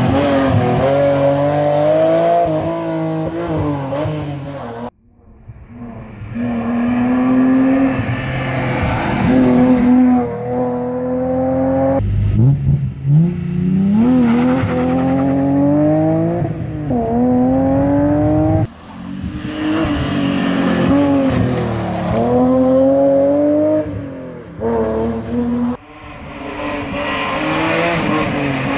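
BMW E36 rally cars' engines running hard at high revs, the pitch rising and falling with throttle and gear changes over several short passages, each cut off suddenly. About twelve seconds in, one car pulls away from a standing start with its revs climbing steadily.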